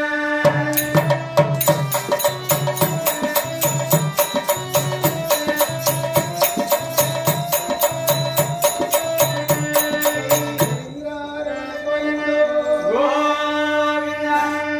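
Folk devotional singing with a fast, even beat of small hand cymbals and a drum for about ten seconds over a held drone; the beat then stops and a singing voice comes in over the drone near the end.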